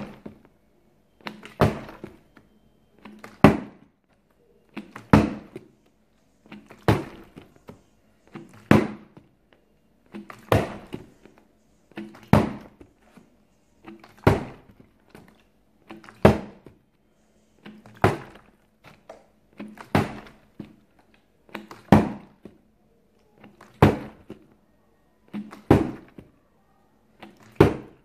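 A plastic water bottle, partly filled with water, flipped over and over and landing on a table with a thunk about every two seconds, around fifteen landings in a row.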